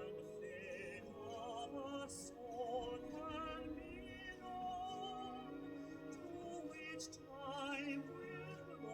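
Operatic-style music played from a vinyl record on a record player: a melody line with wide vibrato carrying through.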